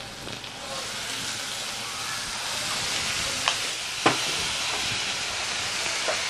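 Chopped vegetables sizzling in a hot nonstick wok as soy sauce is poured in; the hiss swells about half a second in and then holds steady. Two sharp clicks come near the middle.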